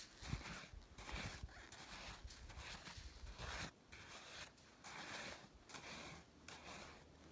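A plastic frisbee scraping and chipping into hard, sintered snow in repeated short strokes, roughly one or two a second, digging out an entrance hole. The snow has set into a tough crust.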